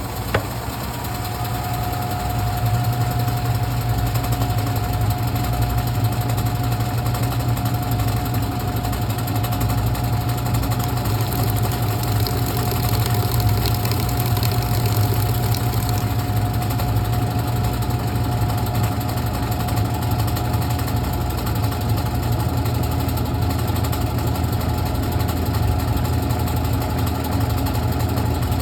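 Brastemp Clean washing machine running: a steady low motor hum with a steady whine over it. A click comes right at the start, and the sound builds over the first two seconds, then holds steady.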